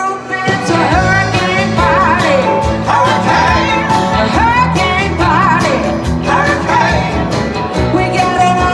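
Live country-rock band playing a song with lead singing over electric and acoustic guitars, accordion, keyboard and drums. The full band comes back in loudly about half a second in after a brief dip.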